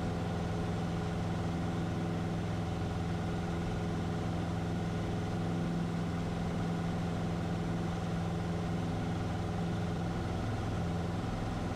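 Cessna 150's Continental O-200 four-cylinder engine and propeller droning steadily at full power during the climb-out after takeoff.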